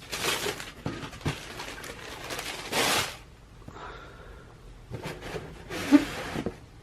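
Rustling and handling noises from a pair of sneakers being picked up and turned over, in uneven bursts with a few light knocks and a brief squeak near the end.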